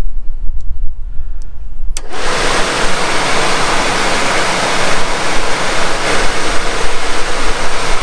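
Suburban RV furnace blower motor switching on with a click about two seconds in, then running with a loud, steady rushing of air.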